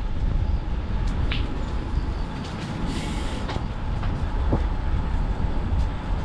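Steady, fluctuating rumble of wind buffeting the microphone, with road noise, during a bicycle ride.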